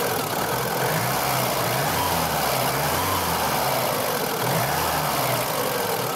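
Lada Samara's four-cylinder engine idling at really low revs, its pitch rising and falling slightly a few times. It runs without knocking or clanking after a dishwashing-liquid flush and fresh oil, and the owner finds it less rough.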